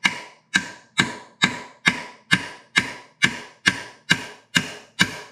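Hammer driving a punch against the countershaft of a 1939 Ford transmission: twelve steady metal taps about two a second, each ringing briefly, knocking the shaft out so the cluster gear can drop down.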